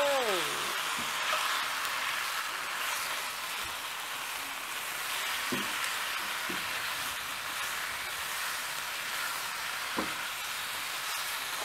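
Shrimp, onion and peppers sizzling steadily in a hot nonstick wok while being stirred and tossed with a silicone spatula, with a few light knocks of the spatula against the pan.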